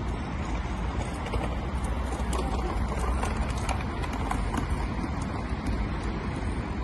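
Outdoor street ambience: a steady low rumble of wind on the microphone, with a run of sharp, irregular clicks and taps from about two to five seconds in.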